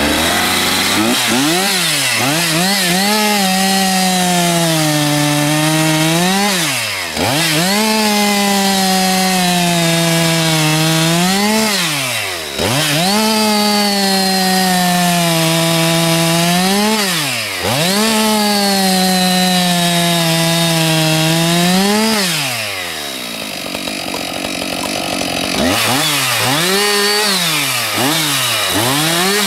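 Husqvarna 576 XP chainsaw, a 73.5 cc two-stroke, bucking dry acacia logs into firewood rounds. Four cuts in a row: the engine pitch sags under load through each cut and rises back to full revs as the chain breaks through. It then drops to lower running for a few seconds before several quick revs near the end.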